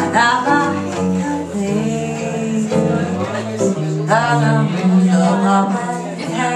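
Live jazz music: guitar chords accompanying a wordless melodic lead line played or sung into the microphone, with bending notes near the start and again about four seconds in.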